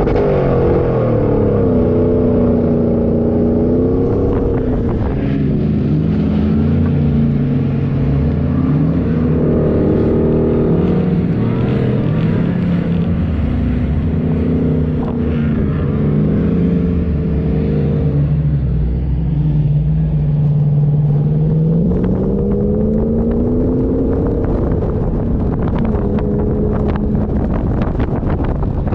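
Off-road 4x4's engine running while driving, the revs climbing and falling repeatedly every few seconds under changing load, with some knocks and rattles near the end.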